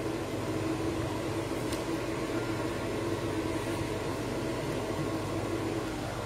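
Kitchen cooker-hood extractor fan running with a steady hum and hiss.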